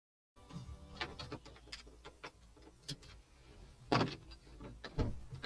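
Inside a car: a low hum with scattered clicks and knocks, two louder knocks about four and five seconds in, after a moment of dead silence at the start.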